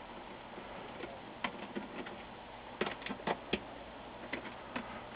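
Faint, scattered clicks and taps of a screwdriver and hands working on an LCD monitor's metal frame as screws are undone, with a quick cluster of clicks about three seconds in.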